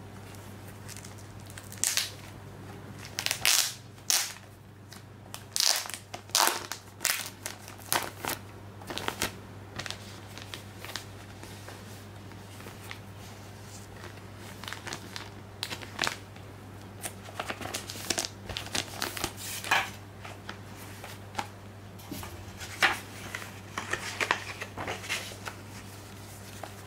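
Clear plastic shrink-wrap crinkling and crackling as it is peeled off a Blu-ray box by hand, in irregular clusters of crackles with short pauses between. A steady low hum runs underneath.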